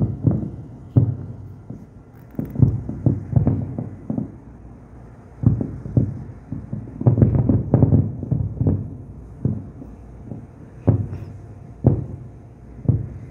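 Fireworks display: a quick, irregular run of low booms, densest about seven to eight seconds in.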